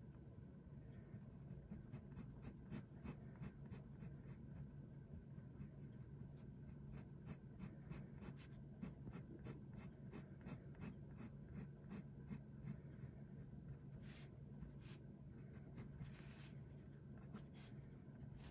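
Fountain pen nib scratching faintly on paper in a quick run of short hatching strokes, followed by a few longer strokes near the end.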